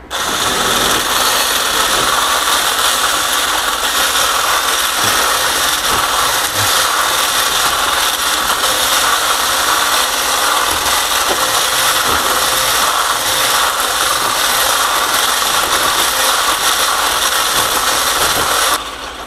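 Hand-held stick blender with a whisk attachment running steadily, whisking oil and honey in a small glass bowl. The motor starts at once and cuts off suddenly near the end.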